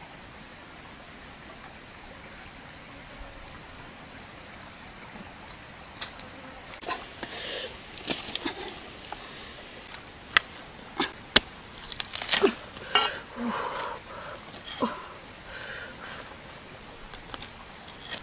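A steady, high-pitched insect drone from the forest. In the second half, a string of sharp knocks and taps as a knife chops into the spiky husk of a durian.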